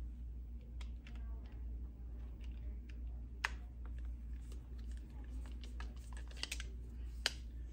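Screwdriver working the grip screws out of an Uberti 1851 Colt conversion revolver: scattered small metallic clicks and ticks of the bit and steel parts, with a few sharper taps about halfway through and near the end, over a steady low hum.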